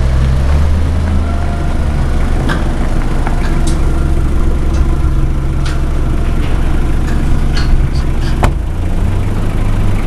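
An engine idling steadily with a low hum, with scattered clicks and knocks over it and one sharp knock about eight seconds in.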